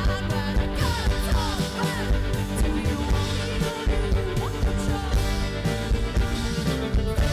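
Rock band playing live, a full, loud passage with a steady beat.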